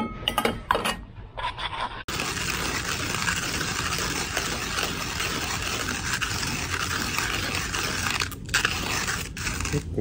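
A few clinks and scrapes, like a utensil against a camp dish, then an abrupt cut about two seconds in to a steady rushing noise that runs on with a few brief dropouts near the end.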